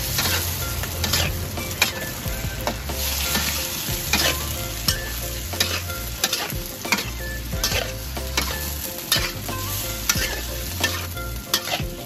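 Squid and shrimp stir-frying in a steel wok: a steady sizzle, with the spatula scraping and knocking against the pan roughly every half second to second as the seafood is tossed.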